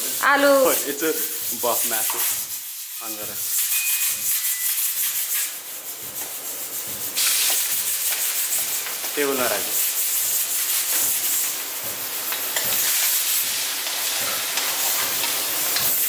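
Chopped food sizzling and crackling in hot oil in a steel kadhai, with a steady hiss that sets in a few seconds in, while a metal ladle scrapes and stirs. A voice is heard briefly near the start.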